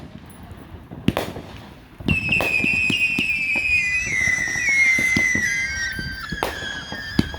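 Fireworks display: a bang about a second in, then from about two seconds on a high whistle that slowly falls in pitch, over scattered crackling and pops.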